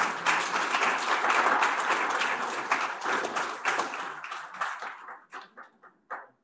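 Audience applauding. The applause thins into a few scattered claps near the end and stops.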